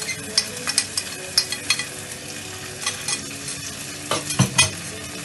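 Boiled pasta being tipped from a metal skimmer into a steel pot of sizzling sautéed vegetables, with repeated scraping and tapping of the utensil on the pot and a couple of louder knocks about four and a half seconds in.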